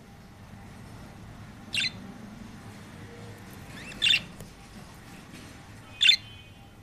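Budgerigar giving three short, sharp calls about two seconds apart, each louder than the one before.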